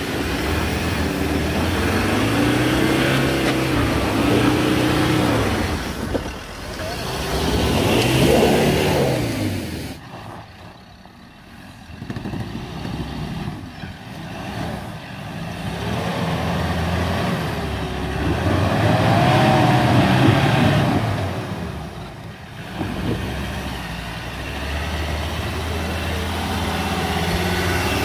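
Troller 4x4 engines revving up and down repeatedly as the vehicles crawl up a steep, rutted dirt climb. The revs surge and ease several times, dropping away briefly about ten seconds in, and a second Troller's engine comes close near the end.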